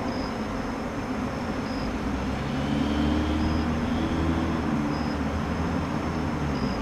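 Steady low vehicle rumble that swells a little in the middle, with a short high chirp repeating about every second and a half.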